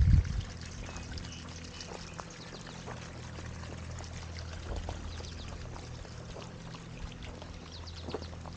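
Water trickling and splashing over a steady low hum, with a brief knock right at the start.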